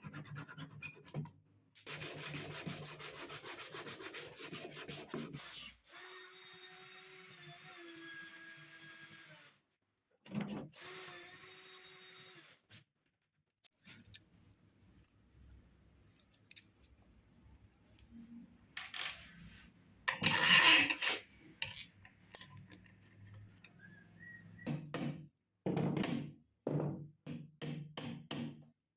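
Hand work on wood in several short bursts: rubbing and rasping, with scattered knocks. There is a loud scraping burst about two-thirds of the way through, and a quick run of knocks near the end.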